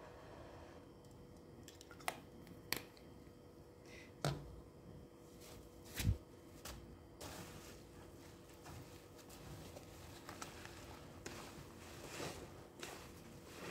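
A few separate sharp clicks and a knock, then a soap-soaked foam sponge squeezed by hand in sudsy water, giving wet squishing and the crackle of foam.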